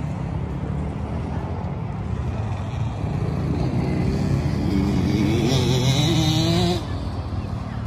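Honda CRF110 kids' dirt bike's small single-cylinder four-stroke engine revving as it rides the track. Its pitch rises and wavers as it gets louder from about halfway, then it cuts off suddenly near the end.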